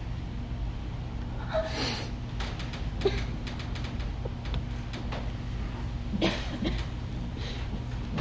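Steady low hum of a theatre hall. A few short breathy noises come about two seconds in and again about six seconds in, with scattered light clicks and knocks between them.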